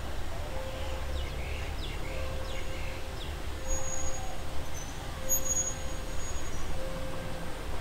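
THN/NKF diesel railcar running slowly toward the platform, a low steady rumble, with high bird chirps and whistles about halfway through.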